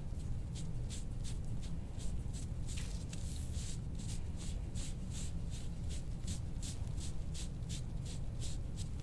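Quick scratchy strokes of a soft-tissue scraping tool over the skin of the back, about three a second, working out a muscle knot, over a steady low hum.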